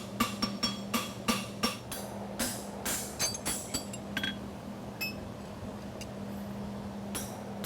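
Farrier's hammer striking a steel horseshoe on the anvil in quick ringing blows, about three a second, pausing in the middle and starting again near the end, as the shoe is shaped.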